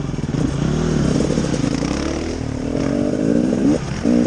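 Small off-road vehicle engine running on a trail, its pitch rising and falling as the throttle is worked, climbing over the middle and dipping briefly near the end before revving up again.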